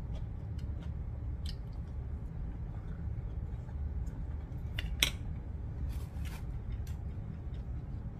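Eating sounds: a plastic spoon scraping and tapping an aluminium foil tray of rice, giving scattered small clicks and a sharper click about five seconds in. A steady low hum runs underneath.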